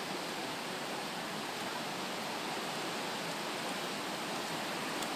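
Steady, even rush of a flooded river in spate, its fast brown water running over the banks and car parks.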